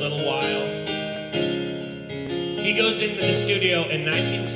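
Digital keyboard played in a piano voice, with a man singing along in a live pop piano song.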